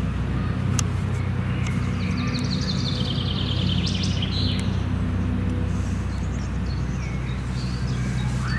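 A steady low mechanical hum in the background, with a bird singing a descending trill of quick notes from about two to four and a half seconds in, and scattered chirps.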